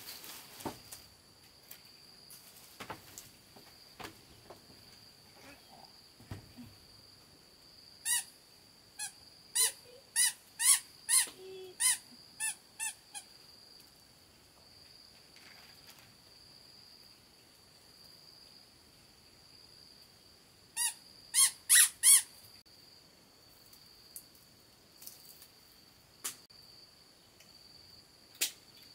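An animal calling in a run of about ten short, loud pitched notes, then four more about two-thirds of the way through, over a steady high insect drone.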